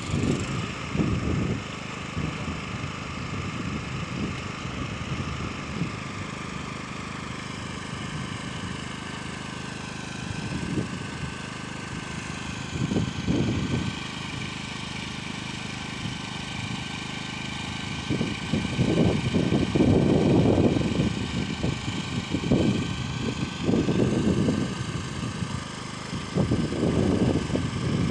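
An engine running steadily, its pitch dipping and recovering a few times, with irregular low rumbling bursts over it, heaviest about two thirds of the way through.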